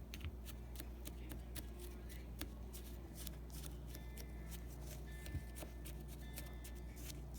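Light clicks and scrapes of hands handling a spoon and small plastic containers of bath bomb mixture, many small ticks at an uneven pace, over a steady low hum.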